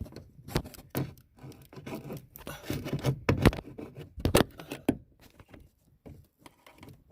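Plastic trunk trim and its fasteners being worked loose by hand: irregular clicks and knocks with rubbing and scraping between them, easing off briefly past the middle.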